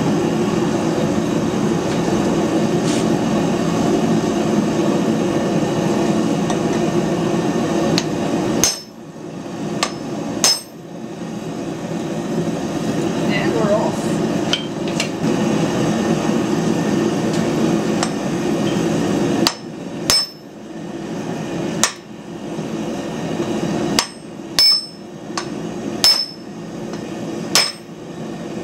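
Hammer blows on a glowing bar of hard carbon steel as its end is upset on a steel block: sharp strikes at an uneven pace, each with a short metallic ring, starting about nine seconds in. A loud steady rushing noise fills the first third and then drops away.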